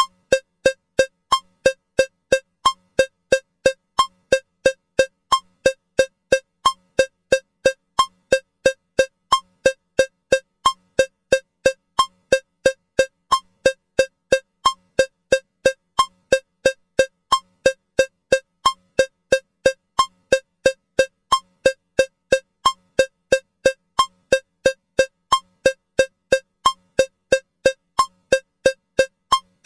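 Metronome cowbell click at 180 beats per minute, three short pitched strokes a second, perfectly even. Every fourth stroke is marked slightly differently as the first beat of a 4/4 bar.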